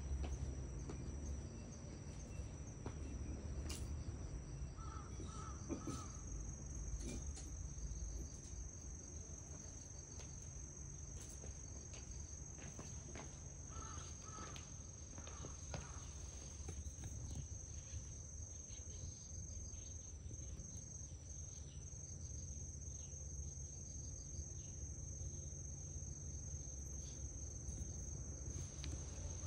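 Steady high-pitched insect chorus, crickets trilling continuously, with a few short faint chirps in two brief clusters.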